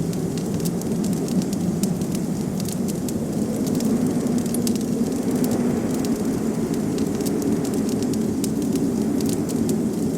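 Wood fire crackling, with frequent small snaps and pops, over a steady low rush of blizzard wind.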